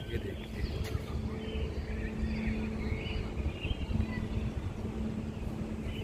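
Outdoor background noise: a fluctuating low rumble with a steady machine hum, and faint high chirps now and then.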